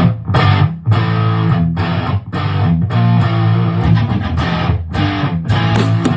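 Electric guitar strumming chords in a steady rhythm, about two strums a second, through the PA.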